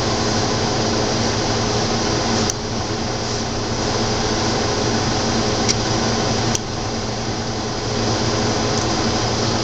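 Steady mechanical whir and hum, broken by three light clicks.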